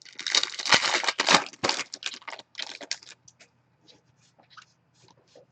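Trading-card pack wrapper and cards being handled: crinkling, rustling noise for about three seconds, then a few faint ticks.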